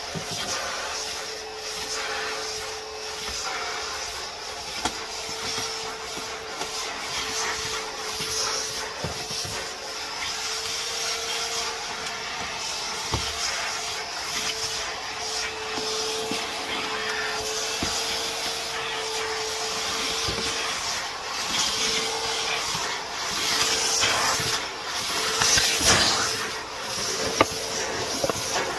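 Vacuum cleaner running over a floor: a steady motor whine with a rushing air hiss that swells and dips as it is moved about.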